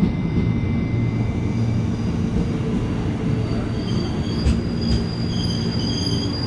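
Commuter train running on the rails with a steady low rumble. About four seconds in, a high-pitched wheel squeal sets in and holds, with two sharp knocks just after it begins.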